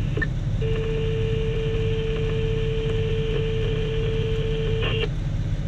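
Heavy diesel engines of a Cat 6020B hydraulic mining shovel and its haul truck running in a steady low rumble while the shovel loads the truck. A steady high tone sounds from about half a second in and cuts off abruptly near five seconds.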